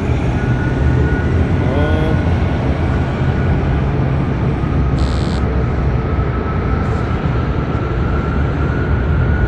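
Heavy diesel engine running steadily with a constant low drone, and a brief hiss about five seconds in.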